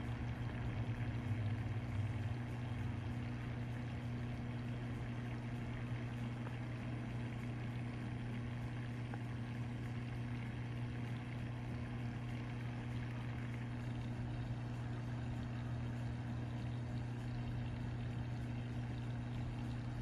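Reef aquarium's pumps running: a steady low hum over an even hiss.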